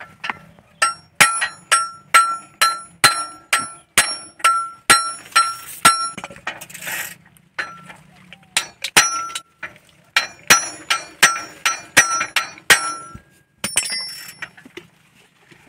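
Hand hammer striking a bicycle's steel pedal crank and cotter pin, backed by a heavy iron block: a steady run of ringing metal clangs, about two blows a second, with a pause of about two seconds midway before the blows resume. The hammering jars the cotter pin loose so the worn crank can come off its axle.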